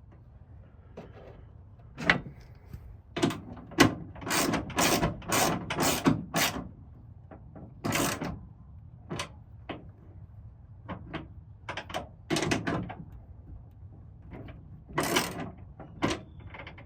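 Irregular knocks, clicks and scraping of tools and metal hardware being worked on a pickup's tailgate, coming in clusters.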